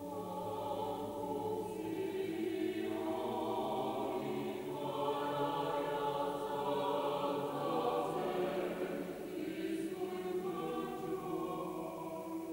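Church choir singing in several voices, with long held notes that swell and ease.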